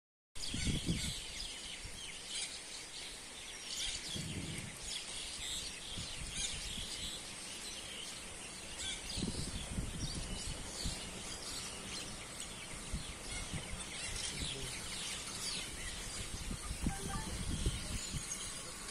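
Wild birds chirping and calling in forest, many short calls throughout, over a steady high hiss, with occasional low rumbles.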